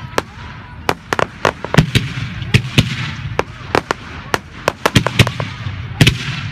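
Fireworks display: firework bursts in sharp, irregular bangs, several a second, over a steady crackling hiss.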